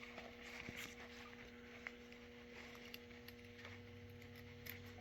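Faint handling of a bungee cord and baling wire: a few small clicks and rustles over a steady electrical hum.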